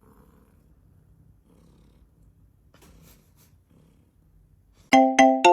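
Domestic cat purring softly in a slow in-and-out rhythm. Near the end it is drowned by loud music: a run of quick, bright struck notes, about four a second.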